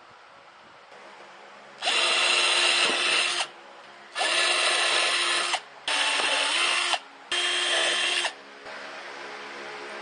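Cordless drill boring holes into a wooden backing board, in four runs of about one to one and a half seconds each with short pauses between. The motor's pitch sags and recovers within each run as the bit bites into the wood.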